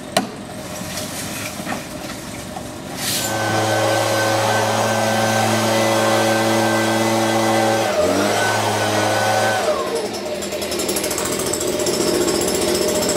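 Handheld gas leaf blower, opened up a few seconds in and run at a steady high speed, blowing sawdust off pavement. Its pitch dips briefly, picks up again, then drops away as the throttle is let off near the end.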